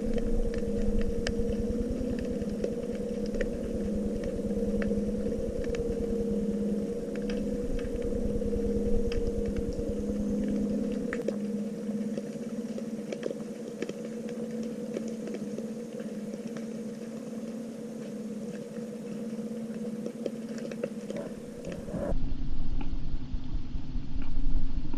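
Underwater recording with a steady mechanical hum held on two low tones, and scattered faint clicks and crackles over it. Near the end it switches abruptly to a duller, louder rumble.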